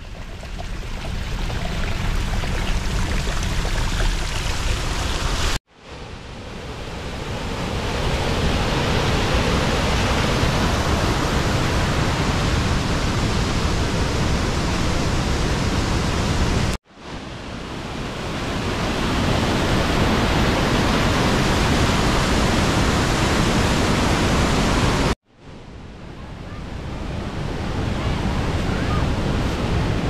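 Steady rush of falling water from a waterfall. It cuts out suddenly three times and swells back up after each break.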